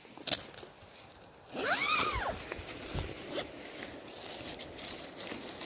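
The door zip of an Onetigris Cosmitto tent being pulled open, its rasp sweeping up and then down in pitch for just under a second. A few light knocks and rustles of fabric come before and after it.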